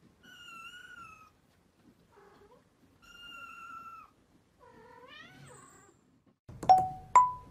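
Kittens mewing faintly: four high, thin calls, two of them long and drawn out. Near the end, two short, much louder musical notes.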